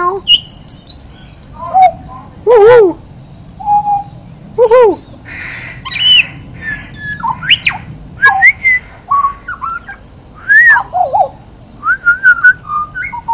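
Pied butcherbird singing a varied run of fluting whistled notes, several gliding downward or rising and falling, broken up by short clicks and a harsh rasping note.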